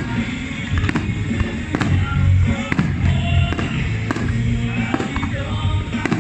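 Fireworks going off, a sharp bang about once a second, over loud music with heavy bass.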